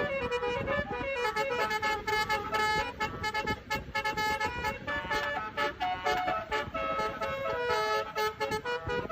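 Basuri multi-tone 'telolet' bus air horn playing a quick melody, one short pitched note after another in steps.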